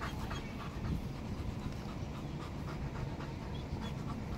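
A dog panting steadily, over a low rumbling background.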